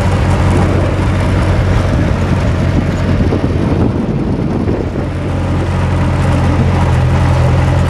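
Old vehicle's engine running as it drives, a loud, steady low drone; about five seconds in, a slightly higher hum joins as the engine note changes.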